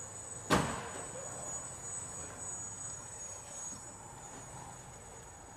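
Small quadcopter drone hovering, a steady high-pitched whine over a low hum, with one sharp knock about half a second in.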